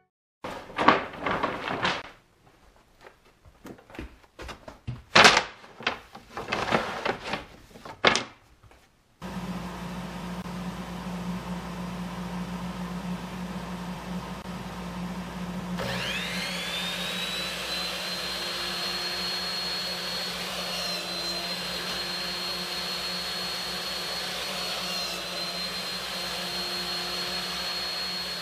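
Clattering knocks of wooden strips being handled, then a shop vacuum starts running with a steady hum. Midway a second motor winds up to a high, steady whine that dips briefly a couple of times.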